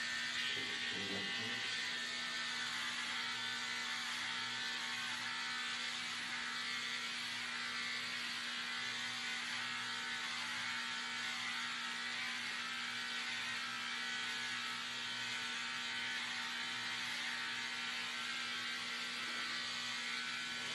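Electric hair clippers running with a steady buzz as they shave long hair off a scalp.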